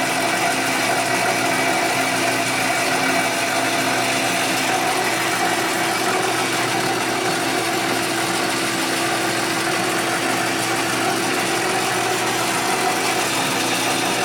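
Metal lathe running steadily with its gears whining, several constant tones over a mechanical hum, while the tool takes a turning pass along a long bar.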